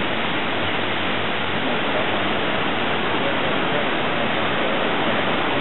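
Water rushing steadily as it pours out of a row of arched outlets at the base of a building and falls into a river.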